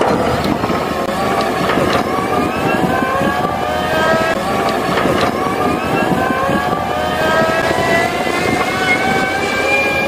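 Compact wheel loader with a front snow-plow blade running as it clears a street, its engine whine rising slowly and steadily in pitch from about three seconds in.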